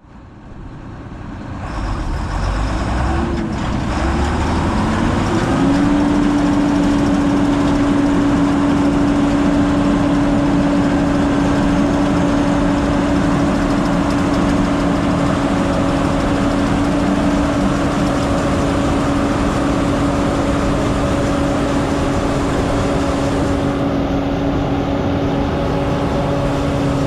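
A vehicle engine winding up over the first five or six seconds, then running at a steady speed for the rest of the time.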